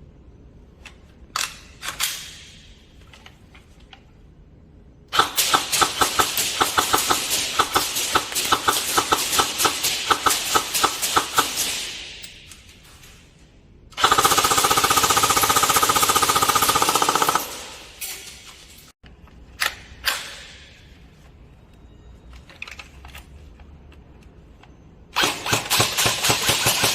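Airsoft guns firing. A few single shots come first, then a long full-auto burst of about seven seconds, then a denser burst of about three and a half seconds with a steady whine under it. After a few more single shots, another full-auto burst starts near the end.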